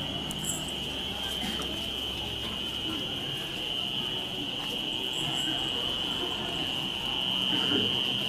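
Night insects, crickets, keeping up a steady high-pitched drone, over a low murmur of voices from the crowd.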